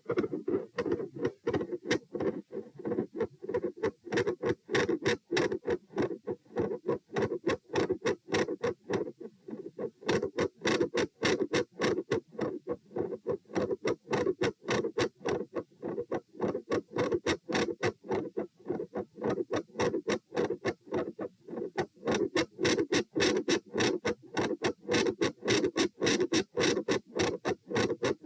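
Heartbeat heard through a stethoscope at the pulmonic listening point: a fast, regular lub-dub with sharp, clicky beats. The beats come closer together in the last few seconds.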